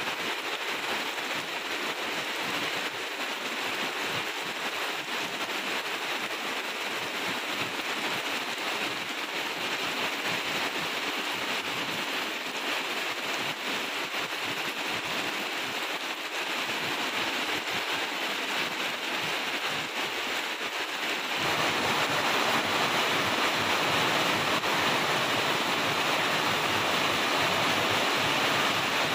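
Heavy rain pouring steadily onto grass and banana leaves. About two-thirds of the way through it becomes louder and fuller.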